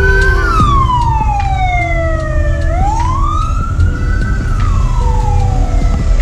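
A siren wailing, its pitch sliding slowly up and down about every four seconds, over passing road traffic.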